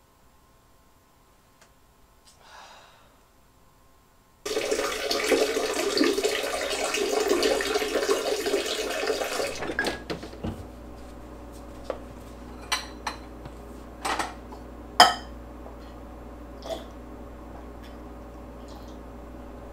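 Water runs hard from a tap for about five seconds and cuts off sharply. Then come a steady low hum and a series of sharp clinks and knocks as containers are moved about on refrigerator shelves.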